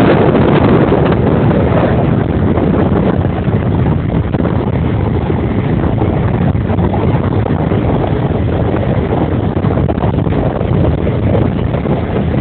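Steady wind rushing and buffeting over the microphone while moving along a road, with the running noise of the vehicle underneath.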